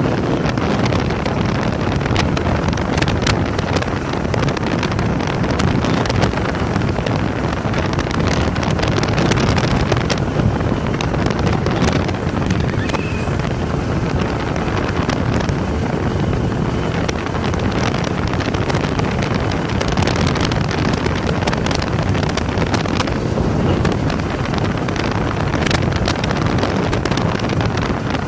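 Steady wind buffeting the phone's microphone as the motorcycle rides at road speed, with the motorcycle's running noise underneath.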